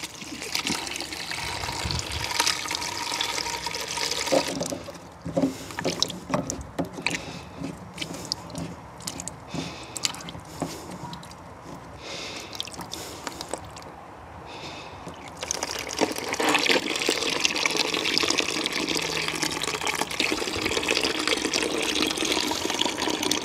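Water running from a water butt's newly fitted tap into a plastic bucket, flushing out plastic shavings from the freshly drilled tap hole. The flow stops for a stretch in the middle, with a few clicks and knocks as the tap is handled, then runs again.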